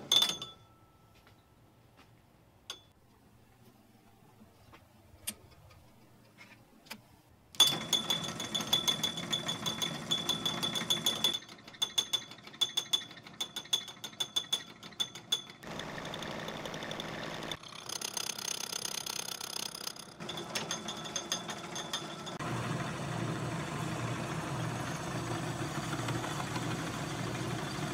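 Homemade metal lathe turning a cast aluminum bar between centers. After several seconds of near quiet with a few faint clicks, the machine runs with a high steady whine and rapid ticking, the sound changing at several points, and ends on a steady low hum.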